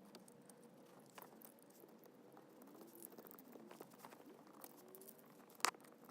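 Faint scattered clicks and taps from fidget spinners being handled, with one sharper click near the end.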